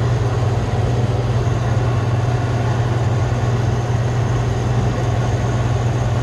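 Refrigeration unit of a cooler running after its compressor was replaced: a steady low hum from the hermetic compressor with an even rushing noise over it, the system back in normal operation.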